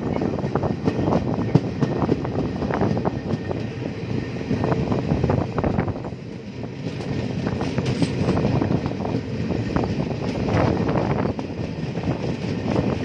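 Passenger train coach running at speed, heard from its open door or window: a steady rumble of wheels on the rails with frequent sharp clicks and rattles.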